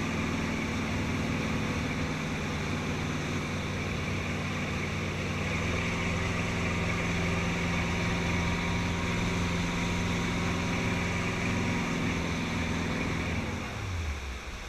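EbbTide 2400 deck boat's engine running steadily at cruising speed, with water rushing past the hull. Near the end the engine note falls away as the throttle is pulled back and the boat slows.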